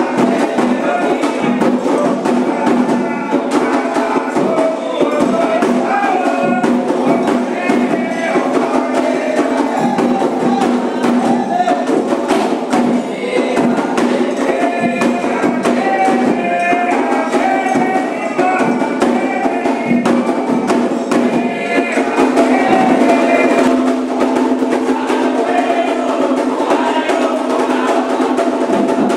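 Candomblé ritual music: atabaque hand drums played in a fast, steady rhythm with sharp struck accents, under voices singing a chant.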